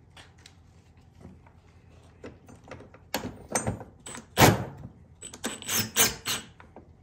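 Clinks and knocks of a metal ditch-light bracket and its screw being fitted at a truck's hood hinge. Light handling clicks at first, then a run of sharp metallic clanks from about three seconds in, the loudest about halfway through.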